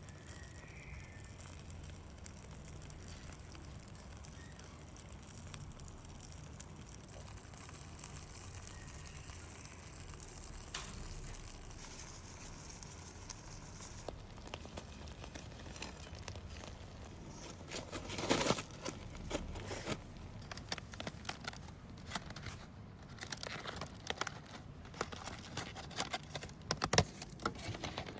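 Aluminium foil and parchment paper crinkling and rustling as they are handled. The crinkling is sparse at first and grows busier in the second half, with its loudest burst a little past the middle.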